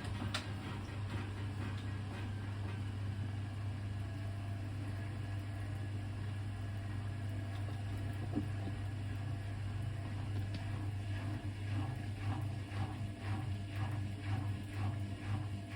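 Hoover VHD 812 washing machine running on its cotton cold programme, with a steady motor hum. From about ten seconds in, a regular swishing sets in, a little more than once a second, as the drum turns.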